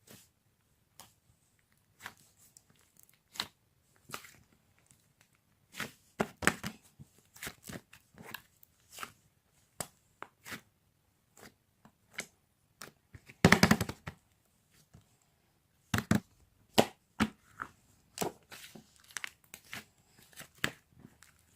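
Close handling noises of crinkly material: scattered taps, clicks and crinkles, with a short, loud rasping tear a little past halfway through.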